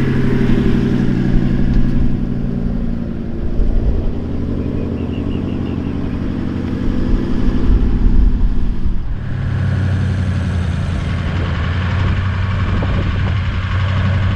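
Toyota LandCruiser 76 series engine running steadily while driving, with an abrupt change in tone about nine seconds in.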